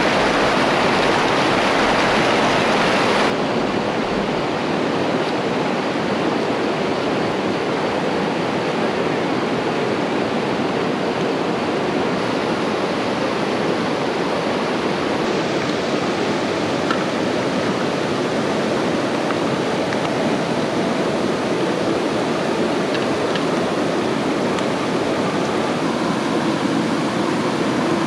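Steady rushing of water, a dense, even hiss with no pitch to it. About three seconds in it abruptly turns a little quieter and duller.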